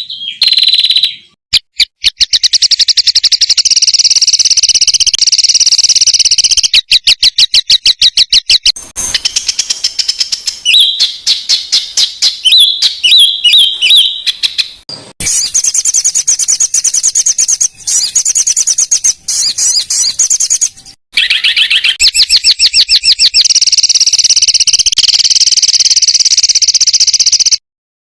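Songbird song played as a masteran recording: loud, high-pitched, rapid-fire repeated notes and fast trills, with a few short breaks between phrases.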